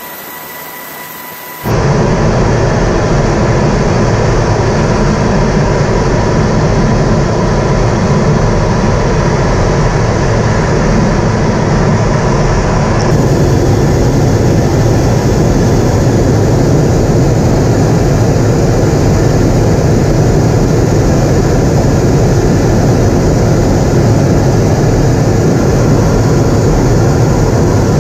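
Steady noise of a jet fighter in flight, engine and airflow heard from aboard the aircraft. It cuts in suddenly about two seconds in, after a quieter stretch with a faint steady tone.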